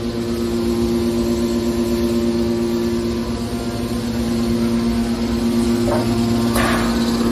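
Hydraulic metal baler's motor and hydraulic pump running with a steady, even hum. Two short noisy bursts, like metal scraping, come near the end.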